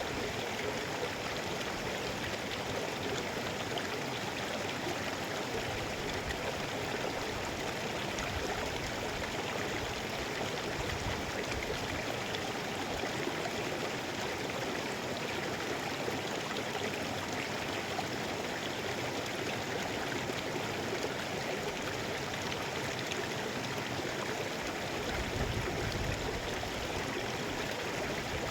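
Mountain river flowing steadily, a continuous even rush of water, with a brief low rumble near the end.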